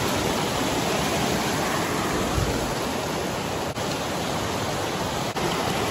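Steady rush of water from a mountain creek, an even hiss-like noise that holds at one level.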